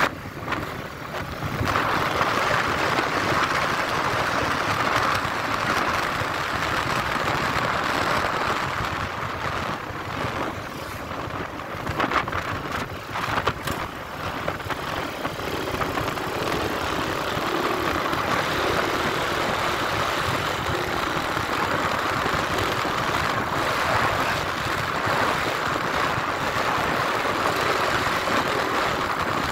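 Motorcycle ridden at speed: a steady rush of wind and road noise with the engine running underneath. A few sharp knocks come a little before the middle.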